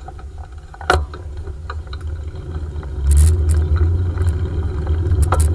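Wind buffeting the microphone of a handlebar-mounted camera on a bicycle rolling along a paved path, with knocks and rattles from the bike; a sharp knock about a second in, and the rumble grows louder about three seconds in.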